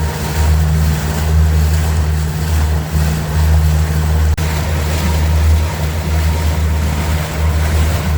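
Motorboat underway: a steady low engine drone with a rush of wind and water.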